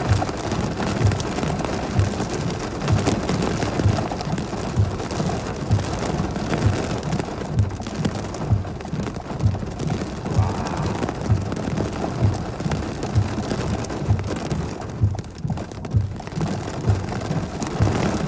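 Heavy rain pouring down in a thunderstorm, a dense steady hiss, with a regular low thump a little more than once a second throughout.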